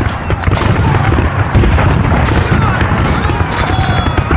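Battle sound effects: a mass of men shouting and yelling over a continuous low rumble, with scattered gunfire and booms. A short shrill cry rises above them near the end.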